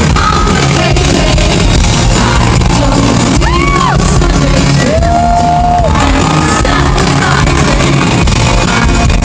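Live pop-rock music played loud in an arena, with singing and fans shouting along; a couple of high cries stand out near the middle.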